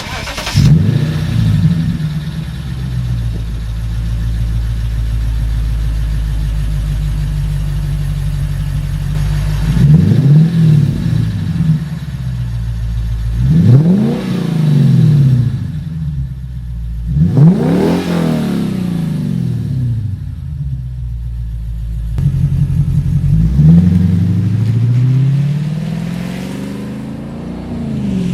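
Lexus sports sedan with an aftermarket exhaust, started and then revved in place. The engine catches at the very start and settles into a steady idle. It is blipped sharply three times, about 10, 14 and 18 seconds in, then given a longer, slower rev near the end.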